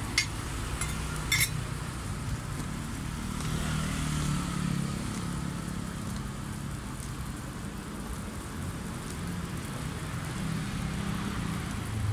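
Two sharp clicks of a metal spatula striking the steel roti griddle, then a low engine rumble from a passing motor vehicle that swells about four seconds in and again near the end.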